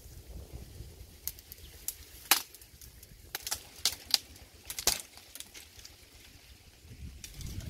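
Dry branches and reed stems crackling and snapping as brush is handled and pulled apart by hand: a scatter of sharp, irregular cracks.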